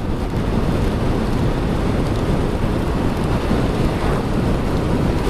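Steady wind rush and rain noise on the microphone of a motorcycle riding at speed in heavy rain, with no let-up.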